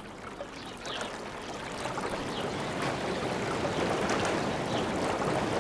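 Running water, a steady rushing with faint splashes in it, growing gradually louder.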